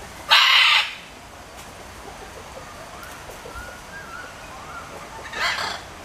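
Scarlet macaw giving two short, harsh squawks: a loud one just after the start and a weaker one about five seconds later. Faint chirps from other birds are heard in between.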